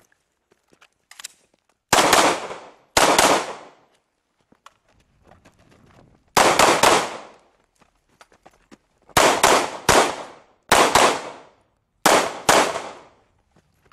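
Glock 19 9mm pistol fired about ten times, in single shots and quick pairs, each sharp crack trailing off in a short echo, with pauses of one to three seconds between groups.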